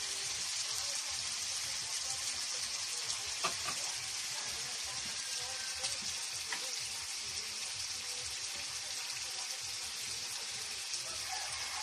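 Shrimp sizzling in oil in a black pan over a wood fire: a steady frying hiss, broken by a couple of sharp clicks.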